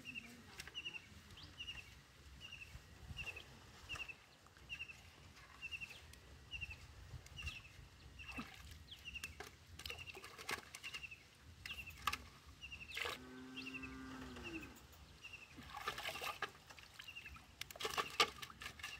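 Hands splashing and sloshing in shallow pond water among lily pads, busier near the end, while a bird repeats a short high chirp about one and a half times a second. A brief low tone sounds for about a second and a half about two-thirds of the way in.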